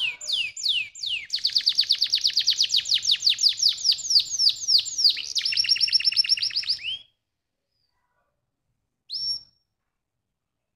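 Domestic canary singing a long rolling song of rapid downward-sweeping trilled notes, about eight a second. It shifts to a faster, higher trill and stops abruptly about seven seconds in, followed by a single short call a couple of seconds later.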